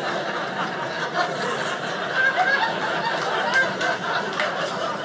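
Audience laughing at a comedian's joke, many voices laughing together.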